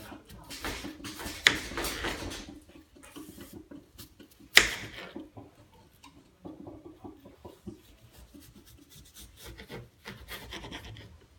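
Irregular rubbing and scraping noises, with two sharp knocks, the first about a second and a half in and a louder one about four and a half seconds in.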